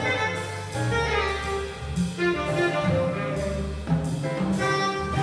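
Live jazz quartet playing: a saxophone leads a melodic line over piano, upright double bass and drum kit with cymbals.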